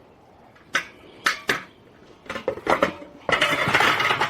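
Metal parts of a raised garden bed kit clinking as they are handled during assembly: a few separate clinks, then a dense rattling clatter for about a second near the end.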